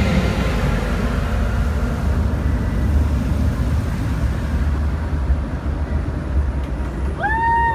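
Steady low outdoor rumble as the light show's soundtrack fades out. Near the end a single voice whoops with a rising cry as the crowd's cheering begins.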